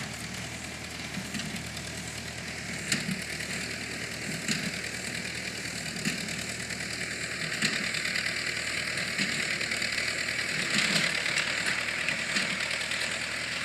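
McCormick International B45 hay baler running with its tractor: a steady engine drone with a sharp knock repeating about every one and a half seconds.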